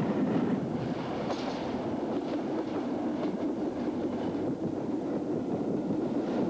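Hastings diesel-electric multiple unit running past with a steady rumble, its wheels clicking over the rail joints.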